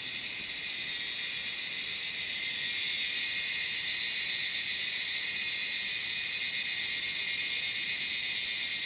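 Dense, steady chorus of night crickets, a high-pitched continuous trill.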